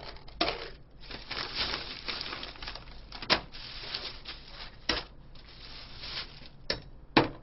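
Rustling and crinkling of packaging while things are set out by hand, with about four sharp knocks of bottles set down on a plastic stool, the loudest near the end.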